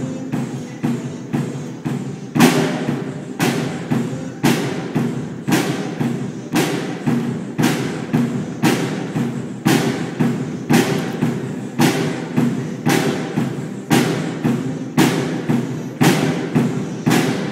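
A drum kit played in a steady beat of about two hits a second, getting louder about two seconds in, over a held low electronic keyboard chord.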